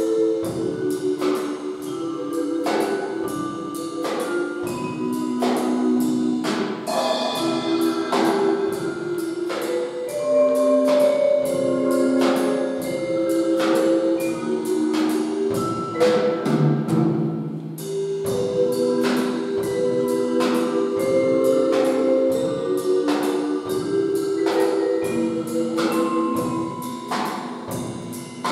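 A live drum kit keeps a steady beat under melodic notes from a mallet instrument and a keyboard.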